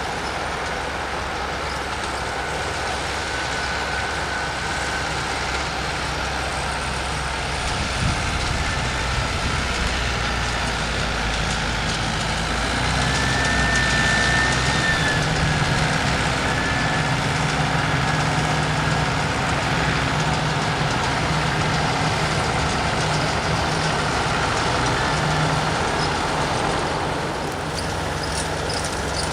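A vehicle engine running steadily under a wide hiss of road or wind noise, its low hum growing louder from about halfway through and easing off near the end.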